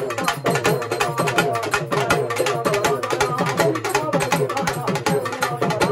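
Urumi melam ensemble playing: urumi hourglass drums driven in a fast, steady rhythm, their stick-rubbed heads giving a rapid string of falling, groaning pitch glides over dense drum strokes.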